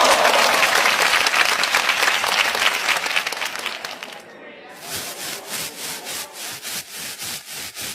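A dense crackling clatter that fades out about four seconds in, followed by regular rubbing strokes, about three a second, like a saw or sanding block worked back and forth.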